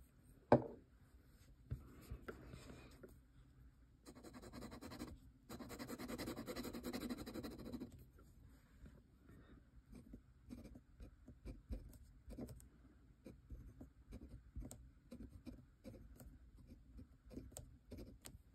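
A brass dip-pen nib scratching on notebook paper. There is a sharp knock about half a second in, then a few seconds of continuous scratching as the ink swatch is painted, then short scratchy strokes of handwriting.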